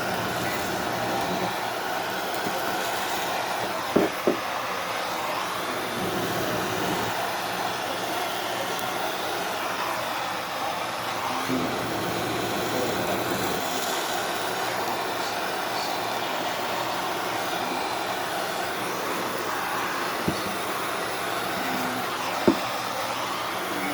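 Steady rushing roar of the tool being used to char porterhouse steaks on a grill. A few sharp clicks or knocks sound over it, two close together about four seconds in and two more near the end.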